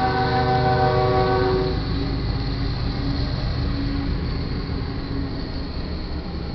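Freight train's lead locomotive, a GE ES40DC, sounding its horn chord as it reaches the grade crossing. The horn cuts off under two seconds in, leaving the loud rumble of the locomotives and cars rolling through the crossing.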